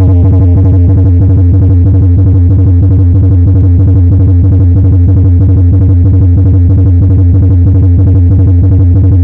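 Electronic music: a loud, steady bass drone with a fast, even pulsing beat.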